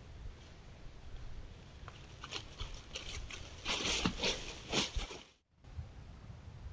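Coyote footsteps rustling and crunching through dry leaf litter: a run of crackling steps, loudest about four seconds in, that cuts off abruptly about five and a half seconds in.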